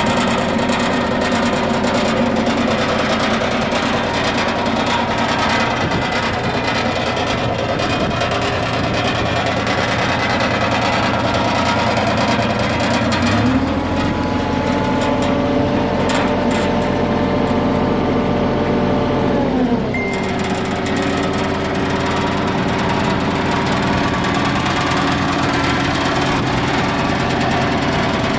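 Mitsubishi MM20CR mini excavator's engine running steadily; its note changes about halfway through and holds until about 20 seconds in, when it drops back, as the machine is worked.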